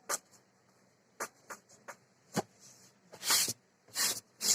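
A series of sharp clicks with a few short, louder scrapes in the second half, the sounds of hard parts being handled.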